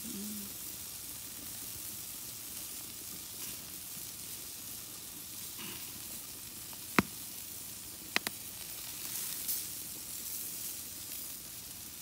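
Chorizos sizzling on a grill over a wood fire: a steady hiss, broken by a few sharp pops, one loud pop about seven seconds in and a quick pair a second later.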